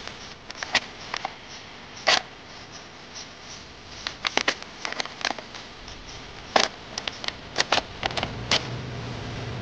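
Slats of a red-lacquered wooden folding stand clacking and knocking against each other and on the wooden bench as it is folded and unfolded by hand: irregular wooden clicks, some single, some in quick runs of three or four.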